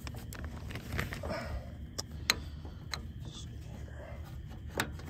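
Steel roller drive chain of a planter row unit clinking against its sprocket and idler as it is worked into place by hand: a handful of separate sharp metal clicks, the loudest about two seconds in.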